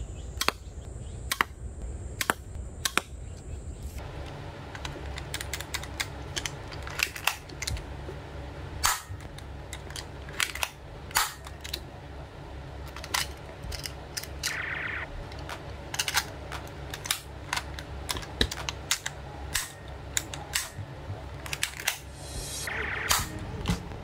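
Sharp metallic clicks and snaps from a Walther PPK-style airsoft pistol being handled, its magazine pushed into and pulled from the grip, irregular and many, with a brief ringing scrape twice.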